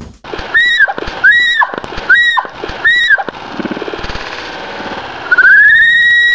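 A girl's high-pitched screams: four short shrieks that rise and fall, then one long held scream starting about five seconds in.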